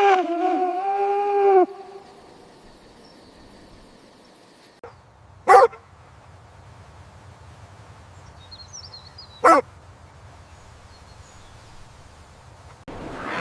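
Animal calls: one held, even-pitched call lasting about a second and a half, then after a pause two single short, sharp calls about four seconds apart.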